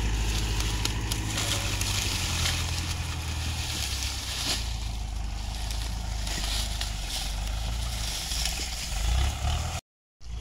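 A vehicle engine running steadily at low speed, with dry sugarcane stalks rustling and crackling as they are shifted about; the sound cuts out briefly near the end.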